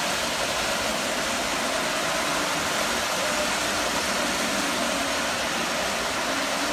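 Lionel O gauge toy train running on the layout: a steady whirring rumble of the locomotive motor and metal wheels rolling on the three-rail track.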